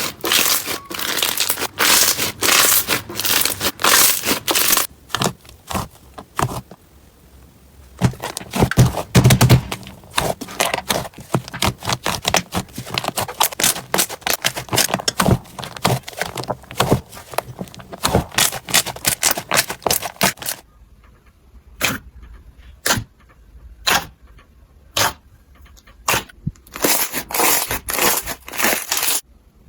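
Slime being squeezed and worked by hand, crackling and popping in dense runs of sharp clicks. For a few seconds near the end these thin out to a handful of separate pops before the dense crackling resumes.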